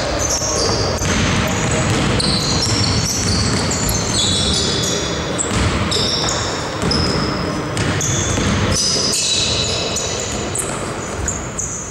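Basketball game on an indoor court: a ball being dribbled and many short, high squeaks of sneakers on the hall floor, coming in quick succession.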